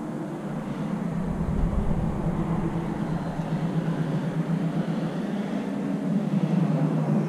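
Wind buffeting the camera's microphone: a loud, steady rush that swells about a second in and again near the end.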